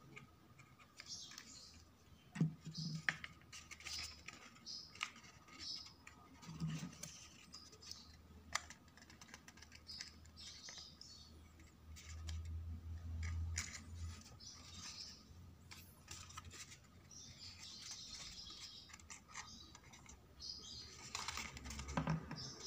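Quiet, scattered light taps and clicks with soft rustling: hands handling and pressing glued card-stock papercraft pieces on a cutting mat.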